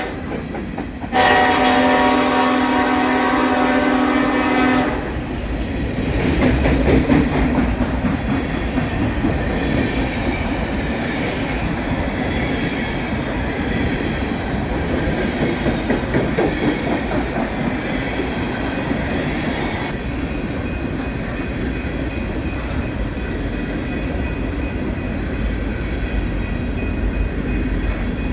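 Diesel freight locomotive's air horn sounds one long blast a little over a second in and cuts off after about three and a half seconds. The freight train then rumbles past, with wheels clattering on the rails.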